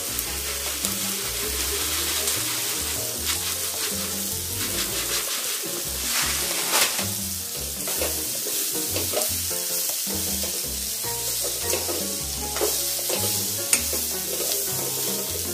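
Sautéed vegetables and dry roasted vermicelli sizzling in a steel kadhai, with a steel ladle scraping and clinking against the pan as it stirs them.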